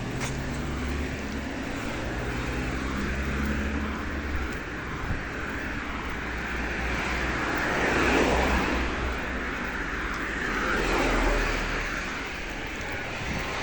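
Road traffic: an engine running close by at first, then vehicles going past, loudest about eight and eleven seconds in.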